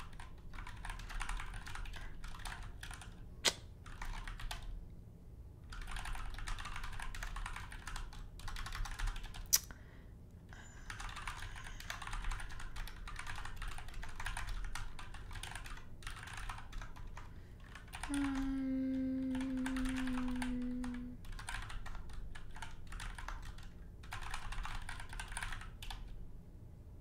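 Typing on a computer keyboard in bursts of a few seconds as terminal commands are entered, with a couple of sharper single key clacks. About two-thirds of the way in, a steady low hum lasts about three seconds.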